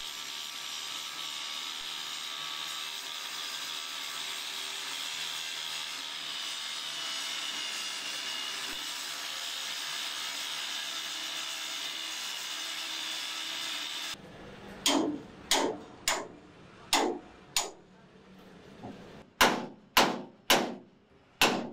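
Angle grinder grinding the steel body of a straw reaper, a steady high-pitched whine with grinding noise. About fourteen seconds in it stops abruptly and gives way to a string of sharp metal strikes on thin steel sheet, roughly one or two a second.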